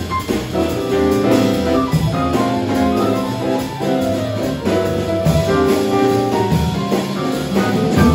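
Live jazz combo playing, with piano, upright bass and drum kit.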